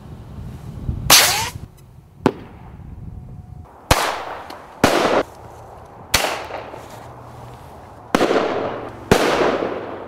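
Bird-scaring pyrotechnic shells fired from a pistol launcher and a shotgun: about six sharp bangs over ten seconds, each trailing off in a short rushing tail.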